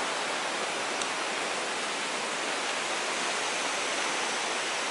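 Steady rushing of a shallow mountain river running over rocks and stones.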